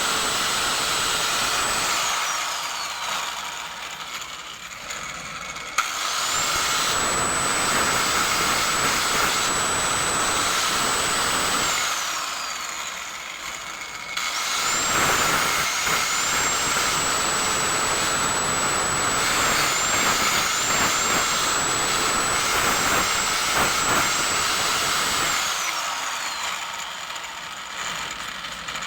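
Small high-speed power tool running in three long runs, with a steady high whine over a rough working noise. Each time it is let off, the whine falls away as it spins down, near the start, about midway and near the end.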